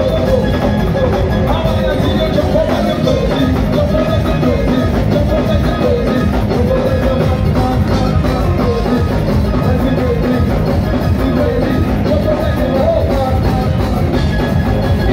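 Soca band music played loud from a band truck: a singer's voice over a steady, driving beat.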